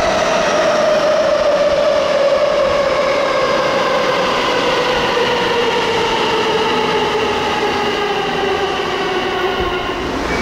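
Tsukuba Express TX-1000 series electric train braking into an underground station. Its motor whine falls steadily in pitch over running and rail noise, and fades as the train comes to a stop.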